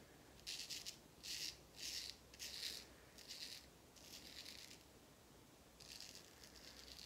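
Wide Filarmonica 14 straight razor scraping through lathered stubble on the chin and jaw: a series of short, quick rasping strokes, with a longer stroke near the end.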